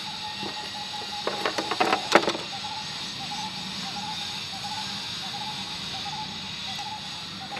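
A quick run of sharp clicks and knocks about a second in, from the GPS receiver's power equipment, a red battery case and its cable, being picked up and handled. A steady hiss and a faint repeated chirp lie underneath.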